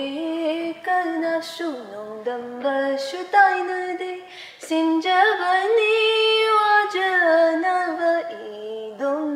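A woman singing solo without accompaniment, holding drawn-out notes with a long sustained phrase from about five to eight seconds in.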